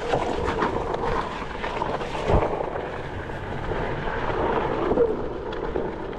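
Wind buffeting the microphone: a steady rushing rumble with a few irregular low thumps.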